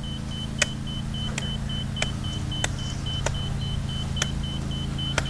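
Laser level receiver on a grade rod beeping fast at one steady high pitch, its signal that the bar is not yet on grade, over a steady low machine hum. Light sharp taps come about every two-thirds of a second.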